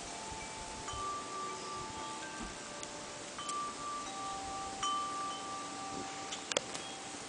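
Wind chimes ringing: several long, steady tones of different pitches, struck at irregular moments and overlapping as they ring on. A few sharp clicks come near the end.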